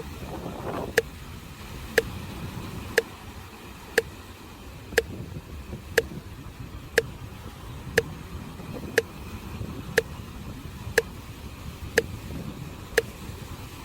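A sharp tick almost exactly once a second, steady like a metronome, over the low, steady wash of sea waves on the shore.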